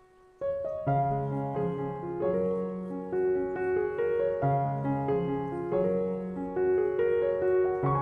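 Background piano music. After a brief pause, the piece starts up again about half a second in with a steady, even run of notes.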